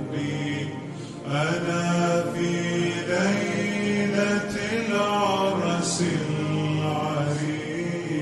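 Arabic nasheed sung in a male voice, slowed down and heavy with reverb: long, gliding held notes, with a new phrase coming in about a second in.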